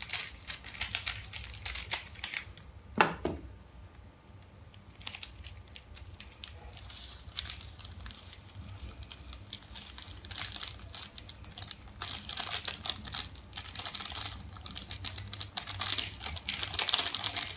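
Plastic Indomie Mi Goreng seasoning sachets crinkling and crackling as they are cut open with scissors and squeezed and shaken out over the noodles, with a sharp click about three seconds in.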